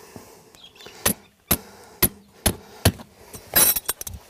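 Hammer blows driving a tent peg into the ground: five sharp strikes about half a second apart, then a brief rustle and a couple of lighter knocks near the end.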